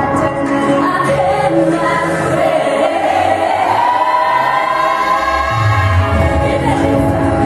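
K-pop song playing for a dance routine, with several voices singing over the backing track; a long held vocal line runs through the middle, and a heavy bass comes in about five and a half seconds in.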